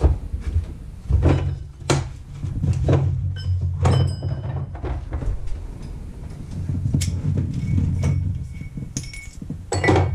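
Plastic hole saw kit case being clicked open and its metal hole saws and bits handled: scattered clicks and knocks, with a brief faint metallic ringing about four seconds in, over a steady low hum.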